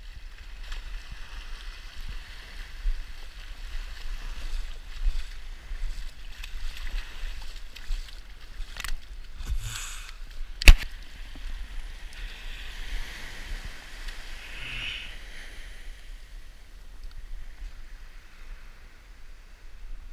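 Shallow surf washing up the beach in a steady hiss, with small handling noises and a single sharp knock about halfway through.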